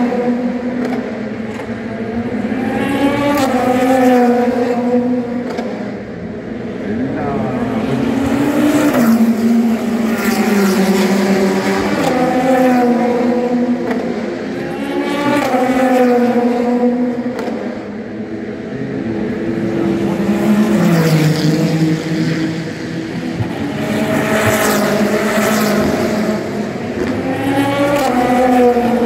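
Race cars passing one after another on the circuit, their engine notes rising and falling as each goes by, with the loudness swelling and fading every few seconds.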